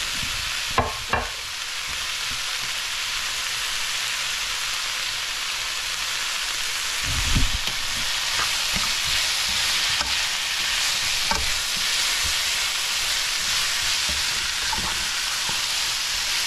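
Carrots and bell peppers sizzling steadily as they sauté in a nonstick wok, with a spatula stirring and knocking against the pan: two sharp knocks about a second in and a heavier thump about halfway.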